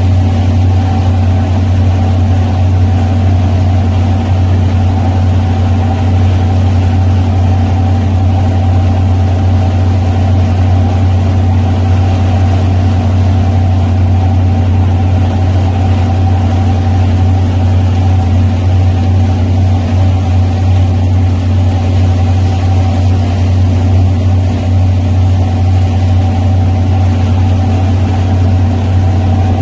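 Twin gasoline inboard engines of a 1978 Carver 28-foot cruiser running steadily under way: a loud, even drone with a deep hum that holds the same throughout.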